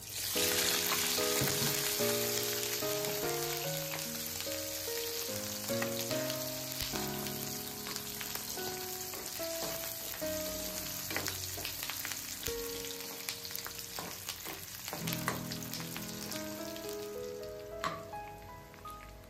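Pork intestine pieces hitting hot oil in a frying pan, sizzling at once and then frying steadily, loudest in the first couple of seconds and easing slowly, with a few spatula strokes against the pan. Background music plays underneath.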